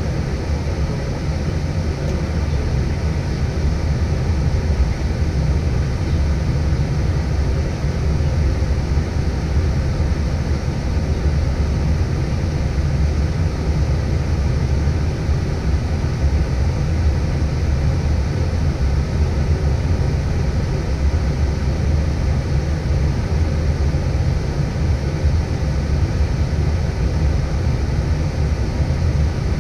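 Steady flight-deck noise inside an Airbus airliner taxiing after landing: the engines at idle and the aircraft's own running give a constant low rumble under an even hiss.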